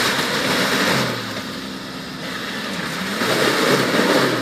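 Suzuki Samurai 4x4's engine revving as it drives through mud, its pitch falling and rising again in surges, loudest about a second in and again near the end.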